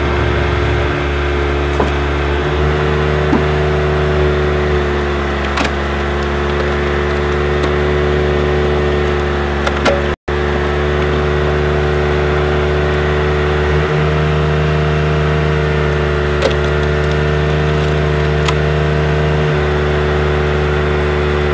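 Car engine running steadily in gear, turning a drive wheel fitted with a screw-cone log splitter, while logs are forced onto the spinning cone and split. There are a few short sharp cracks of splitting wood, and the sound cuts out for an instant about ten seconds in.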